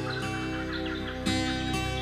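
Background music of sustained chords, the chord changing about a second in, with bird calls faintly over it.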